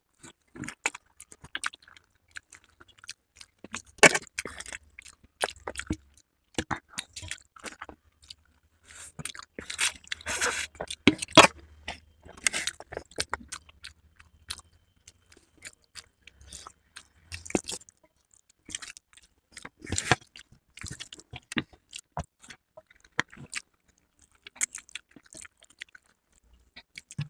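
Two people eating Maggi instant noodles close to the microphone: irregular wet chewing, smacking and slurping sounds, busiest in a few clusters.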